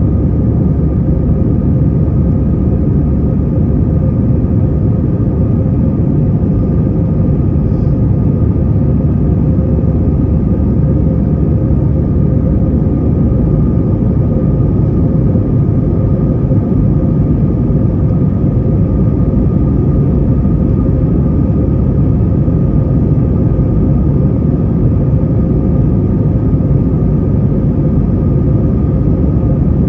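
Steady cabin noise inside an Airbus A321-200 climbing out after takeoff: a loud low rumble of engines and airflow, with two faint steady tones, one low and one higher.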